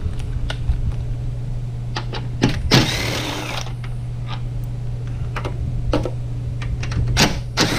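Power drill with a 10mm socket running in a short burst about three seconds in, backing out fasteners on a headlight assembly, amid scattered clicks of tools being handled. A steady low hum runs underneath throughout.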